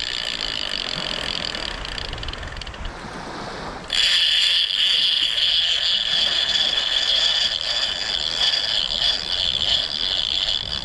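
Clicker on a shark-fishing reel buzzing as a fish runs off with the bait and pulls line out. It fades about three seconds in, starts again much louder about a second later, and cuts off suddenly just after the end.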